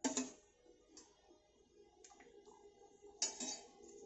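Metal ladle clinking against a steel bowl and plate while yogurt raita is spooned out. There is a sharp click at the start, faint ticks after it and a louder cluster of clinks about three seconds in, over a steady low hum.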